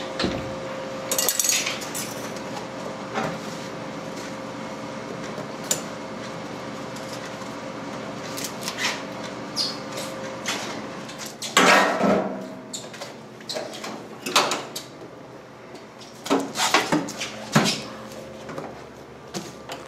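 Scattered clinks and knocks of a plate, a fork and a glass jar being handled on a kitchen counter, over a steady hum. The loudest clatter comes a little past halfway, with a run of lighter knocks near the end.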